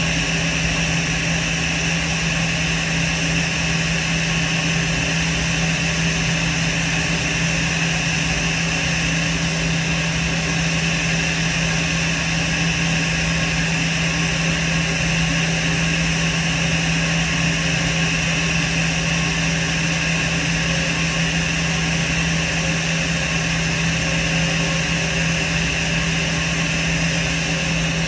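Airbus A320 jet engines idling steadily at the gate: a constant low hum under a high whine, unchanging in pitch and level. The engines are being kept running after parking because the aircraft's APU is inoperative and ground power is not yet connected.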